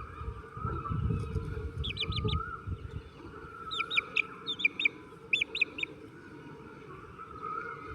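Birds chirping in quick runs of three or four short, high notes, several runs in a row, over a low rumble in the first couple of seconds.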